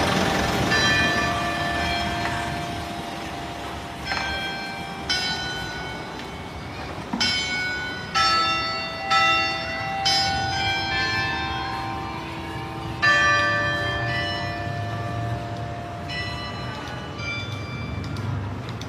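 Church bells ringing, struck one after another at uneven intervals, each stroke ringing on and slowly dying away; the strokes come thickest in the middle and grow softer near the end.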